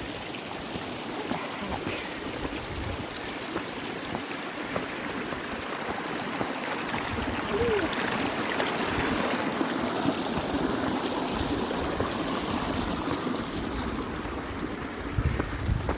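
Running water of a hillside stream: a steady rush that grows a little louder past the middle, with irregular low thumps underneath.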